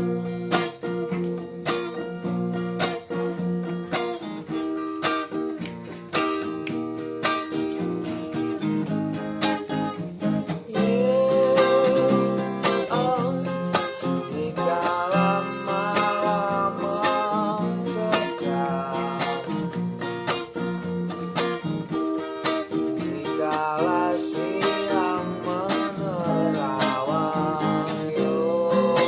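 Acoustic guitar strummed in a steady reggae rhythm as a song intro; a wavering melody line joins in about eleven seconds in and again later.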